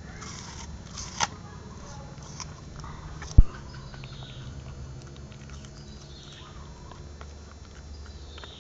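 A dog biting and chewing a green apple, with scattered crunches and clicks, and one loud thump about three and a half seconds in.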